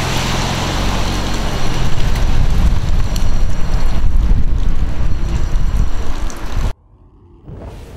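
Toyota 86 driving away on a wet road, its engine heard under heavy wind buffeting on the microphone as a loud, even rush with a deep rumble. The sound cuts off abruptly near the end.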